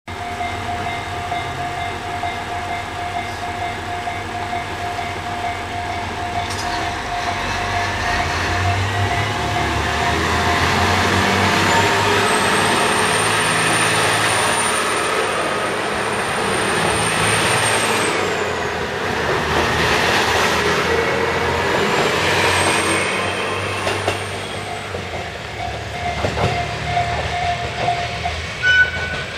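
A four-car train of JR East KiHa E130 series diesel railcars pulling away from a station. The engine and wheel noise builds from about eight seconds in as the cars pass close by, then fades after about twenty-four seconds. A steady high ringing tone sounds in the background at the start and again near the end.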